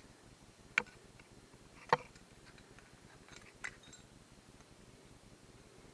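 Small metal parts being handled: three sharp clinks and a few fainter ticks, spaced about a second or more apart.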